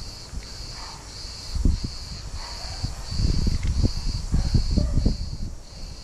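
Cat crunching dry kibble close by, in bouts of chewing about a second and a half in and again from about three seconds in. Behind it, insects chirp in a steady pulse, about three every two seconds.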